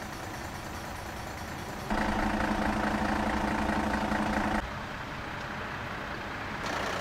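Heavy truck engines idling, heard in short clips that change abruptly. The loudest, from about two seconds in to nearly five, is a steady pulsing engine hum.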